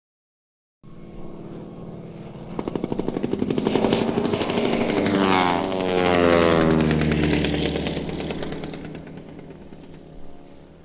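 An engine-driven vehicle passing by: it grows louder, its engine note drops in pitch as it goes past about five to six seconds in, then it fades away and cuts off.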